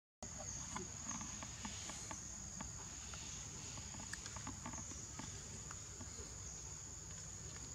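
Forest insects droning steadily at one high pitch, with scattered faint ticks and rustles close by.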